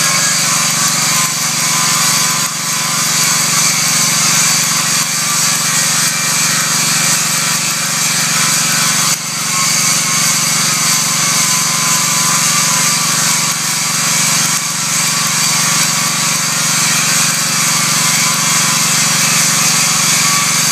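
Stick-welding arc crackling and hissing steadily as a 1/8-inch 7018 electrode burns into the adjustment tabs, with a steady low hum beneath it. The crackle dips briefly about nine seconds in.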